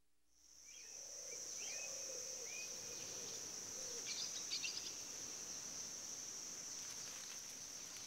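Forest ambience: a steady, high-pitched insect chorus starts about half a second in, with a few short bird chirps in the first seconds and a brief patch of faint clicks about four seconds in.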